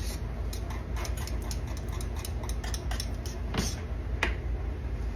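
Scattered light clicks and taps over a steady low hum, with two sharper knocks in the second half.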